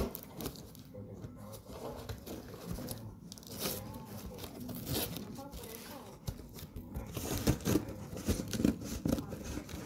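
Cardboard shipping box being opened by hand: flaps and tape tearing and rustling, with scattered scrapes and taps that get busier in the second half.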